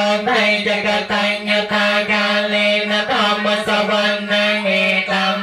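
Khmer Theravada Buddhist monks chanting Pali verses together on one steady reciting pitch, amplified through a handheld microphone.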